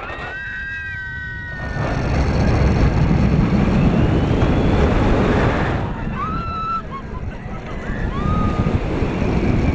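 Roller coaster onride sound: wind rushing over the rider-mounted camera as the train runs along the track, getting louder from about two seconds in and easing off near six seconds. Short high squeals that glide in pitch come near the start and again after the loud stretch.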